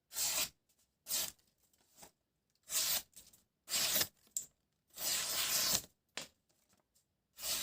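Sharp knife blade slicing through tissue paper in about five separate strokes with short pauses between them, showing the knife's edge is keen.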